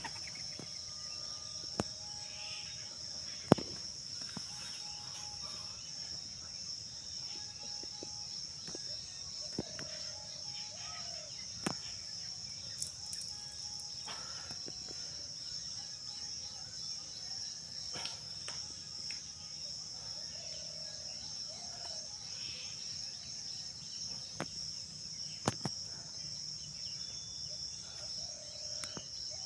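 Steady, high-pitched drone of insects chirring in the undergrowth, with a few sharp clicks scattered through, the loudest about three and a half seconds in, and a few faint short calls.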